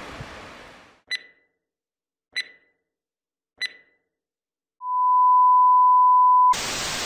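Electronic outro sound effect. A fading background hiss gives way to three short high beeps about a second and a quarter apart, then a steady, louder tone lower in pitch, held for about a second and a half, which cuts straight into a burst of static hiss.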